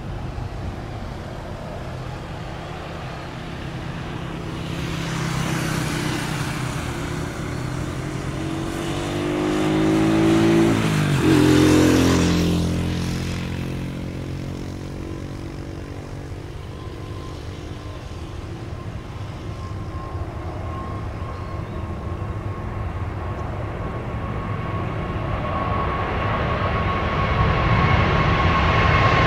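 Jet airliner engines during a takeoff departure, swelling to a peak about eleven seconds in as the aircraft passes, with a falling pitch, then fading. In the second half another jet's engines build up with a steady high whine, growing louder near the end.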